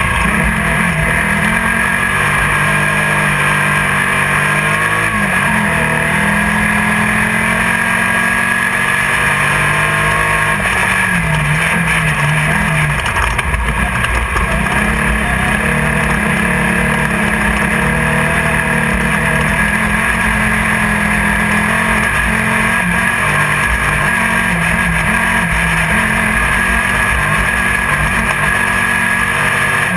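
Off-road race buggy's engine running hard and steadily, heard from inside the car. Its pitch rises and falls a little with the throttle, over a constant loud din of noise.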